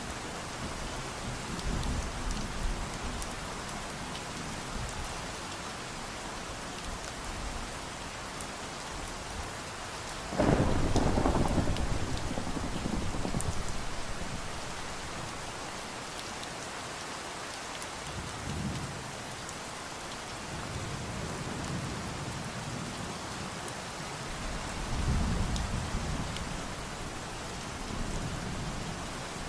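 Steady rain falling, with a sudden loud thunderclap about a third of the way in that rumbles away over a few seconds, and softer low thunder rumbles later on.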